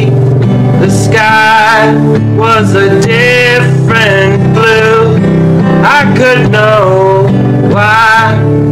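Music: a song with guitar over steady low chords and a wavering sung or played melody line.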